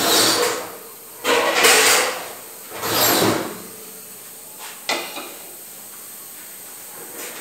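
Kitchen drawer sliding on its runners, three times in quick succession, each slide under a second. Two light knocks follow about five seconds in.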